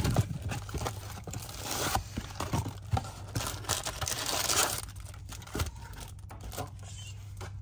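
Rustling and crinkling of cardboard box flaps and plastic wrapping as trading-card packs are handled and pulled out of an opened box. There are small knocks, and the handling is quieter in the last couple of seconds.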